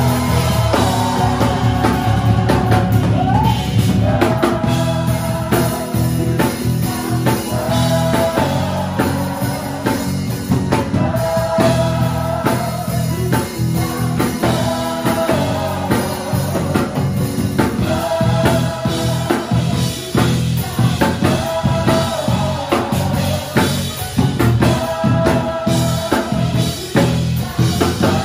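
Music with singing over a drum kit, with a steady beat and short sung phrases repeating every couple of seconds.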